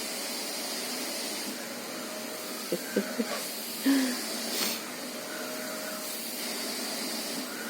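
Household vacuum cleaner running steadily with an even hiss. A few light knocks come about three seconds in.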